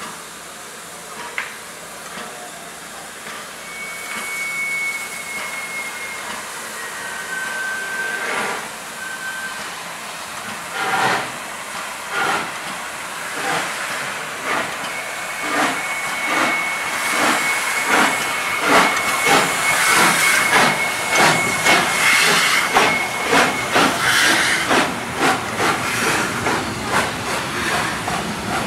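Ol49 steam locomotive starting away with its train: steam hissing from the cylinders, then exhaust chuffs beginning about a third of the way in, slow at first and quickening as it gathers speed. A faint thin high tone runs for several seconds in the middle.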